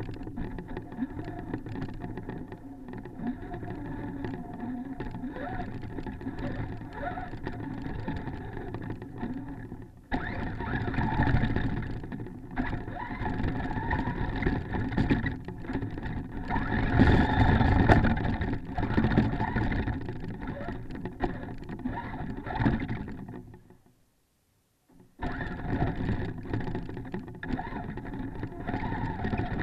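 Traxxas Stampede RC monster truck heard from its onboard camera, its motor and drivetrain whining with rattle and snow noise as it drives through snow. It gets louder in surges as it pushes harder, and goes silent for about a second near the end before starting up again.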